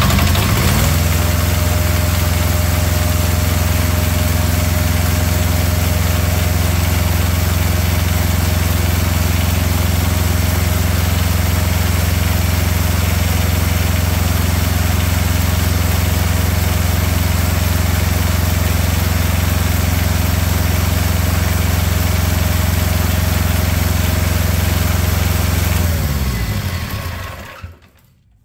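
Small diesel engine of a Carrier ComfortPro truck auxiliary power unit running steadily and smoothly on its first start, rising to its set speed within the first second. About 26 seconds in it is shut off by its solenoid fuel shutoff and spins down to a stop over a second or so.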